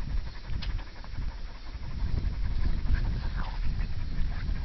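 Dogs panting close to the microphone over an uneven low rumble.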